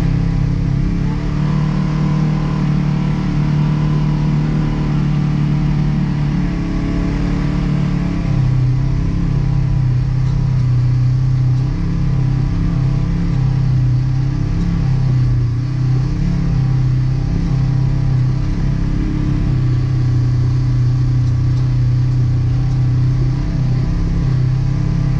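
Side-by-side UTV engine running under way, heard from inside the open cab: a steady drone whose pitch drops a little about eight seconds in and then rises and falls with the throttle.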